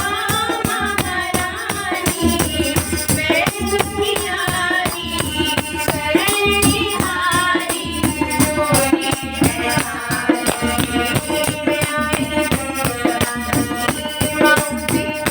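Devotional Hindu bhajan to the Mother Goddess: a voice sings a gliding, ornamented melody over held instrumental notes, with rattling hand percussion keeping a dense beat.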